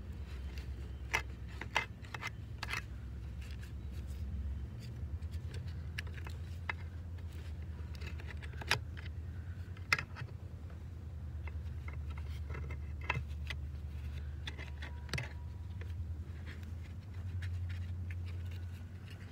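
Scattered metal clinks and scrapes from gloved hands working at the mud-packed hydraulic hose fittings inside a mini excavator's track frame by the final drive, over a steady low rumble.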